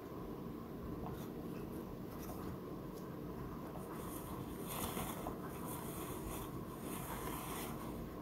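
Faint scratchy rubbing against a wooden floor in several short bouts over a steady low room hum.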